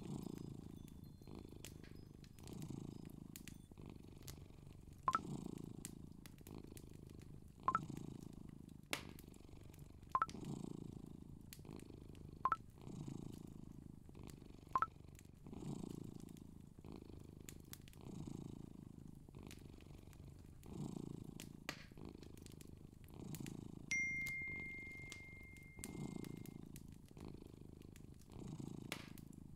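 A low, pulsing rumble that swells and fades about every second and a half. Five sharp clicks sound a couple of seconds apart in the first half, and a single ringing tone holds for a couple of seconds late on.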